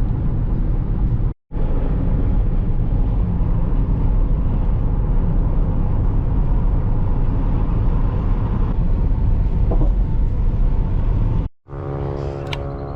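Steady low rumble of a running motor vehicle heard while riding in it. After a sudden cut near the end it gives way to a steadier hum made of several even tones.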